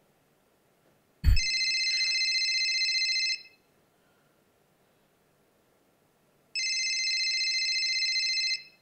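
Telephone ringing twice, each ring about two seconds long with a fast flutter, with a short thump just as the first ring starts.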